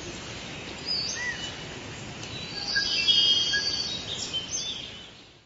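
Forest ambience: birds chirping and whistling in short calls over a steady background hiss. It swells about three seconds in and fades out at the end.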